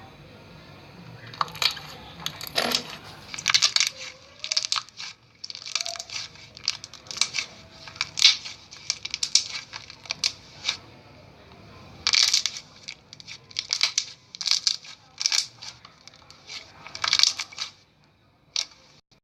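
Slime being squeezed and poked by hand, giving an irregular run of short crackling squishes and pops, with a brief lull a little past the middle.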